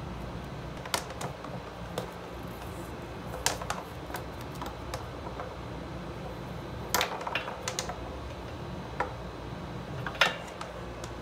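Irregular light clicks and taps of a USB charging hub's power cable and plug being unwound and laid on a glass desktop, coming in scattered clusters, the loudest about ten seconds in, over a low steady hum.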